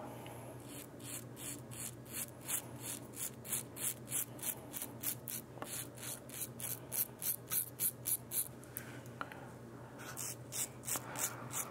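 Merkur 34C HD double-edge safety razor scraping through lathered stubble in quick short strokes, about three a second, on a clean-up pass. The strokes stop for about a second and a half near the end, then a few more follow.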